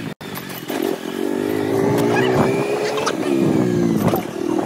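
Motorcycle engine running on the move. Its pitch climbs gently for a couple of seconds, then drops about three seconds in before picking up again, with road and wind noise.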